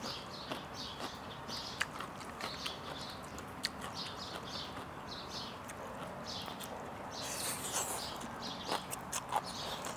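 Eating at close range: soft chewing and mouth noises, a few light clicks of utensils on the plate, and a brief slurp of khanom chin rice noodles past the middle.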